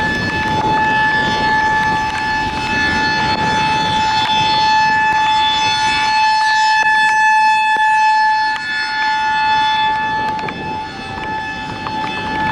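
High-pitched Federal Signal 2001-SRNB rotating electromechanical warning siren sounding a steady single-tone wail for a tornado warning. It grows louder as the rotating horn swings toward the listener a little past the middle, then fades as it turns away.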